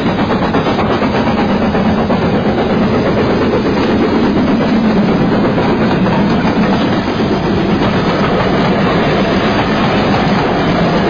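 Train sound effect: the steady rumble of a train running on rails, even and unbroken throughout.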